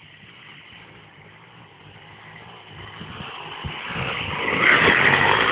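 Two-stroke D6 moped engine running as the bike rides closer, quiet at first and growing steadily louder over the last couple of seconds.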